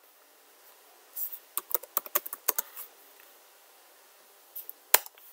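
Computer keyboard keystrokes: short runs of key clicks as a command is typed, then a single louder keystroke near the end.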